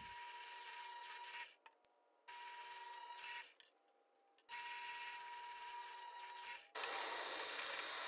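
Central Machinery benchtop drill press running with a steady motor whine while drilling bolt holes through MDF mold blocks, heard in three short stretches broken by abrupt silent gaps. Near the end a louder steady rushing noise without the whine takes over.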